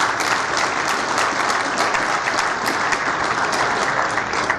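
Audience applauding: many hands clapping at once at an even level.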